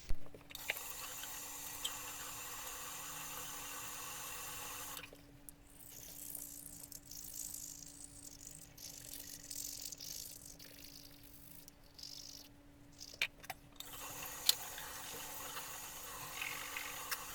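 A tap runs into a sink for about five seconds, then there are several seconds of toothbrush scrubbing, and the tap runs again near the end. A faint steady hum sounds throughout.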